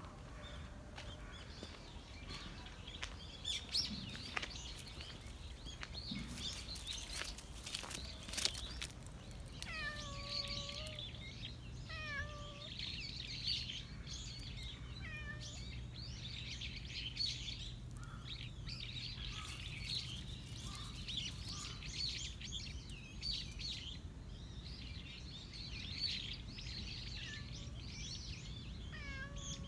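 Stray cat meowing: a few short calls that slide down in pitch, one about ten seconds in, then two more soon after, and another near the end. Birds chirp steadily throughout, and there are scattered footstep-like clicks early on.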